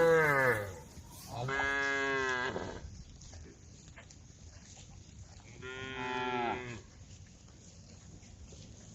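Cattle mooing: a call already under way falls in pitch and ends just under a second in, then two more long, falling moos come at about one and a half and about five and a half seconds in. The cows are calling to the herd.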